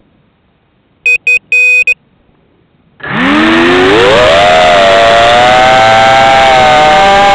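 A short run of electronic beeps about a second in, then about three seconds in the motors and propellers of a homemade 5-inch FPV racing quadcopter spin up with a rising whine and run loud and fairly steady as it lifts off, heard close up from its onboard camera.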